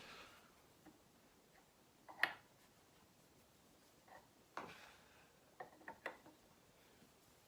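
Quiet room with a few light clicks and taps of objects being handled: one sharp click about two seconds in, then a small cluster of clicks between about four and a half and six seconds.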